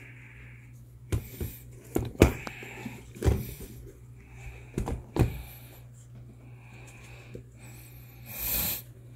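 Handling noise of Nike LeBron 20 basketball sneakers being picked up and turned over: a series of sharp knocks and bumps, then a longer rustle near the end.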